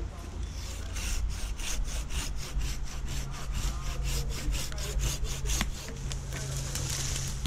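Hand pruning saw cutting through a fresh eucalyptus limb in rapid, even back-and-forth strokes, over a steady low hum; the strokes thin out near the end.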